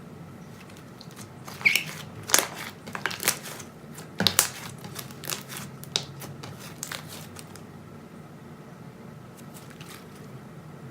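Slime being squished and pressed by hand: a run of sticky pops, clicks and crackles for a few seconds, then only a low steady hum.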